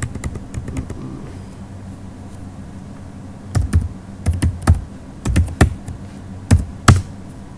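Computer keyboard being typed on: a few keystrokes in the first second, a pause, then a quick run of keystrokes from about halfway through.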